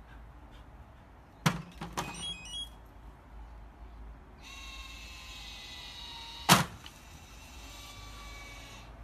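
Automatic dog-ball launcher at work: a knock as the tennis ball drops into its hopper, then its motor whirring steadily for about two seconds before a loud thunk as it fires the ball out, about six and a half seconds in.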